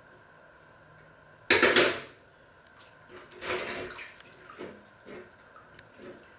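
Water splashing in two short gushes, the first sudden and loud about a second and a half in, the second softer near the middle, followed by a few small drips and clinks.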